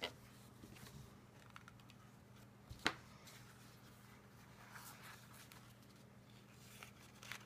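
Faint rustling and crinkling of crumpled paper petals being handled and pressed onto a paper flower, with a few sharp taps, the loudest about three seconds in, over a low steady hum.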